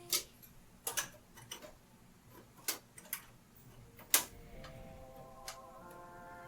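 Scattered sharp clicks and knocks of PC hardware being handled and fitted into a computer case, about eight in all, the loudest a little after four seconds. Faint background music with held notes comes in about halfway through.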